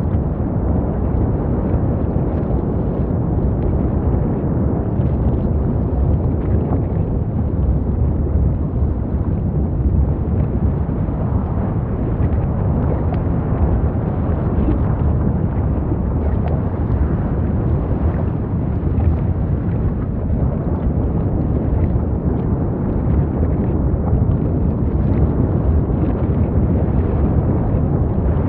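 Steady, deep rumble of the erupting Fagradalsfjall volcano, even and unbroken, with most of its weight in the low bass.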